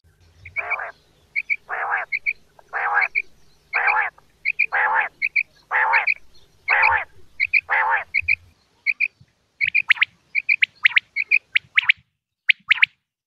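Quail calling: about eight harsh calls roughly one a second, each followed by a pair of short high notes. After about eight seconds come quicker, short, sharp downward notes.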